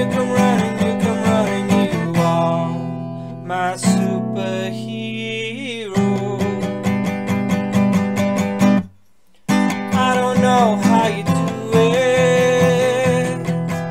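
Acoustic guitar strummed in an instrumental passage: steady strumming, then a stretch of held, ringing chords, a brief stop about two-thirds through, and the strumming picks up again.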